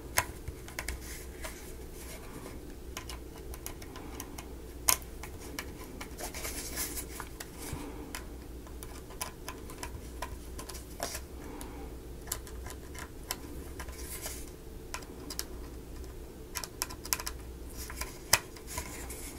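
Small, irregular clicks and light scrapes of laser-cut wooden model parts being handled and snugged into place by hand, over a steady low hum.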